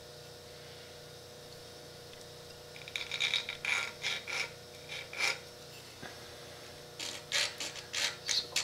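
Steel scriber scratching reference lines onto the Chrysler 383's cast-iron cylinder heads, guided by a steel rule: a few short scraping strokes about three seconds in, then more near the end, over a faint steady hum.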